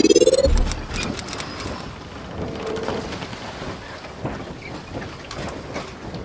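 Logo intro sound effect: a rising whoosh that ends about half a second in with a deep boom, followed by a steady crackling, rain-like hiss with scattered clicks.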